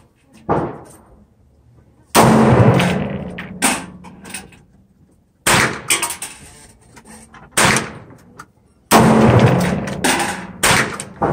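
Gunshots, about nine at uneven intervals a second or two apart, each sharp and echoing. The two about two seconds in and about nine seconds in are the loudest, with a long booming tail.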